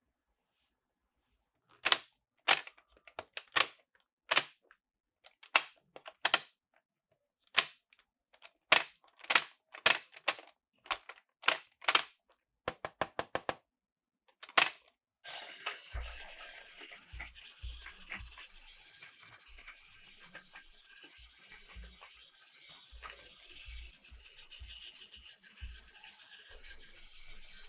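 Sharp plastic clicks and snaps, singly and in quick clusters, as toy train cars are handled and coupled. About halfway through, a battery-powered toy train starts running along its plastic track: a steady rattling whir with irregular low knocks.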